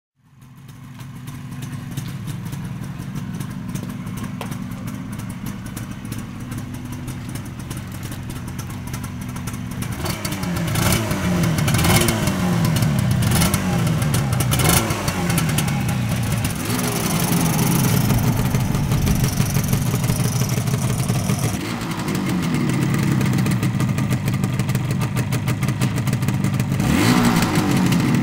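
Yamaha RD250LC two-stroke twin motorcycle engine, stationary. It idles steadily for about the first ten seconds, then is blipped again and again, each rev rising and dropping back, with a steadier, higher-revving stretch in the middle and one more sharp rev near the end.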